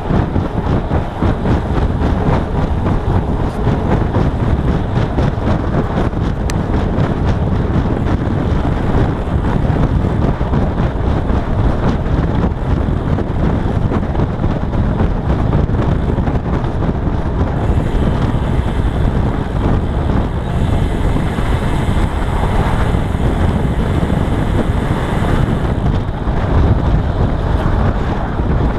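Loud, steady wind buffeting the microphone of a camera on a road bike riding at speed. A higher hiss joins in for several seconds past the middle.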